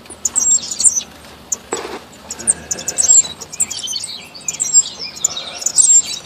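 Cuban grassquits chirping: many short, high chirps and twitters, with one brief thud about two seconds in.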